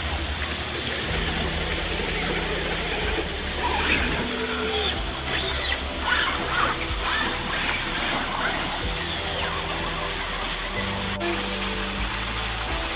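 Background music over a steady hiss of running water, with a run of short high squeals in the middle.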